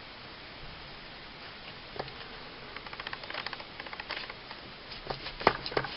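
Light clicks and taps of small handgun parts being handled. There is a quick run of faint clicks about three seconds in and a few sharper clicks near the end.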